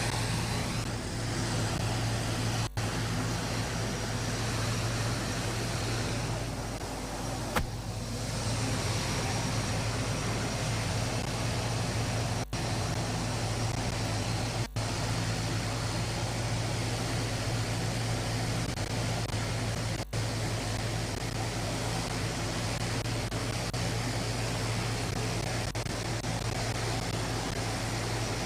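Steady drone of a transport aircraft's engines running on the tarmac, with a deep low hum. The sound cuts out for a split second four times and there is one sharp click.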